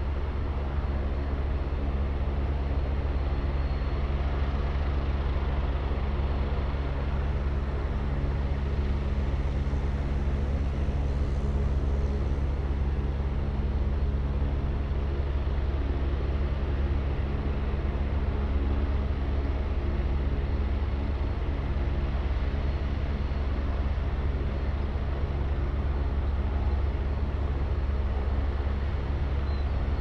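Agusta A109 helicopter idling on the ground: a steady low rumble with a constant hum that neither rises nor falls.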